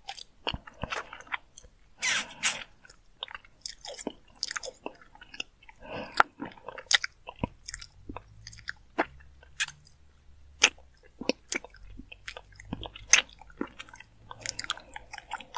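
Long-haired cat grooming, licking its paw and washing its face: irregular wet licking and smacking clicks, with a couple of short snorts about two seconds in.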